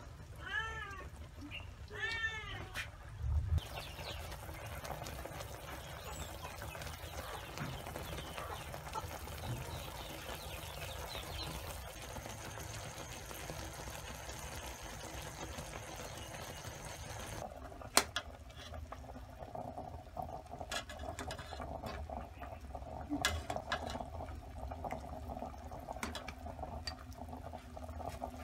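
Pork offal braising in a brown-sugar caramel sauce, bubbling and sizzling in the pot. A cat meows twice near the start, and there is one sharp click about two-thirds of the way through.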